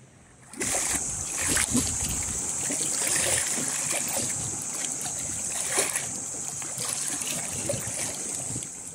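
Seawater sloshing and splashing among shoreline rocks close to the microphone, with irregular splashes and gurgles. It starts suddenly about half a second in, over a steady high-pitched hiss.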